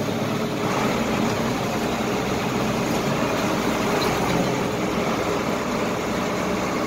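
Loader tractor engine running steadily.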